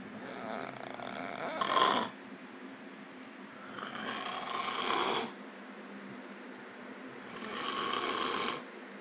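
A passed-out sleeper snoring loudly: three long snores about three and a half seconds apart, the first swelling to its loudest at its end.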